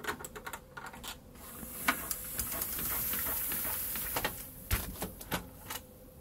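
A cabin roller blind being pulled down by hand: irregular clicks and knocks from the roller and bottom rail, with a high hiss of the unrolling fabric for a couple of seconds.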